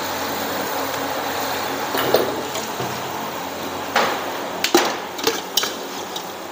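Kitchen clatter: sharp knocks of utensils and dishes, a pair about two seconds in and a quicker cluster from about four to five and a half seconds in, over a steady rushing background noise.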